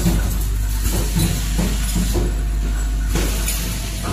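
Vibratory bowl feeder of an O-ring packaging machine running with a steady low hum, the rubber O-rings being shaken along its track. Several short clicks and knocks from the machine come through the hum.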